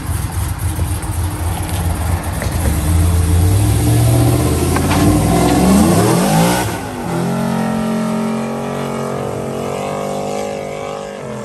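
Chevrolet Silverado pickup's engine revving hard as it pulls away. The pitch climbs for a few seconds, drops at a gear change about seven seconds in, then runs steadily and fades as the truck drives off.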